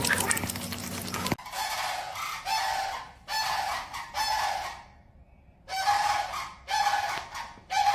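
A noisy stretch with a low hum cuts off about a second in, followed by an animal calling over and over: about seven loud, pitched calls, each under a second long, in two groups with a short pause between.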